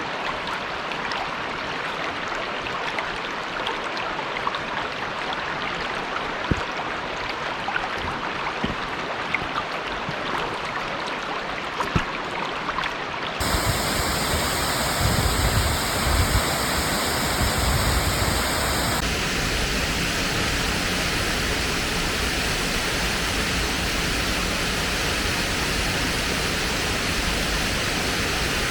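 Steady rushing of falling water at a waterfall. About halfway through it changes abruptly to a louder, fuller rush, with a few low rumbles for several seconds before it settles into a steady roar.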